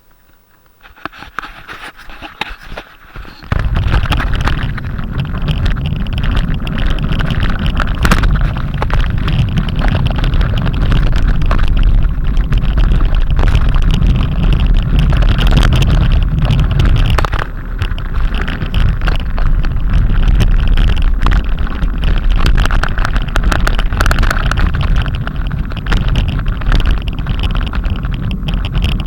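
Strong wind buffeting the microphone, a loud, steady rumble with a hiss above it that starts abruptly about three and a half seconds in after a quieter start.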